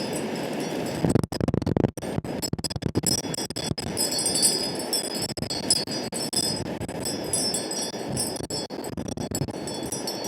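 Wind blowing and buffeting across the microphone, cutting out and spiking sharply about a second in. Light high tinkling rings sound above it throughout.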